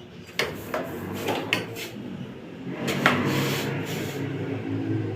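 Household handling noises: a few sharp knocks and clicks of things being moved about on wooden furniture, with some rubbing. The sharpest knock comes about three seconds in, and a low steady hum joins about halfway through.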